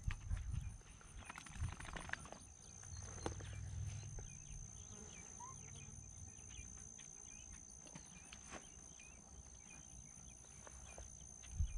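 Quiet field ambience: faint insects chirping and ticking over a steady high whine, with a low rumble that is strongest in the first few seconds.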